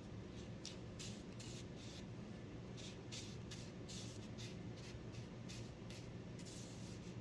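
A string of short, scratchy rustling sounds, irregular and a few a second, over a steady low hum.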